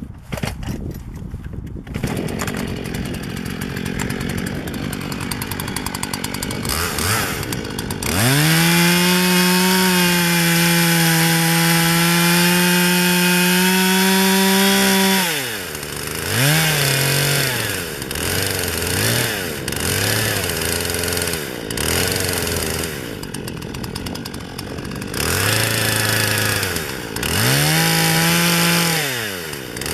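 Chainsaw running low at first, then at full revs for about seven seconds as it cuts into a hedge stem to form the hinge. The revs then drop back with several short blips of the throttle, rise again to full revs for a few seconds, and fall away near the end.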